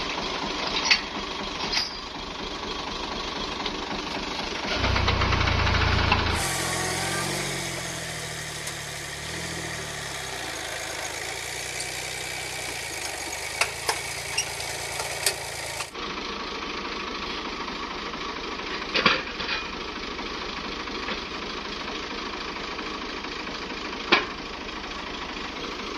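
Farm tractor's diesel engine running steadily, briefly louder and deeper about five seconds in, with a few sharp metal clanks from the hitched implement.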